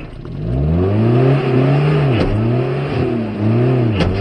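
Small 4x4's engine revving hard again and again, its pitch rising and falling, while the vehicle is stuck in deep mud and its wheels spin and fling mud. Two sharp knocks come in, about two seconds in and near the end.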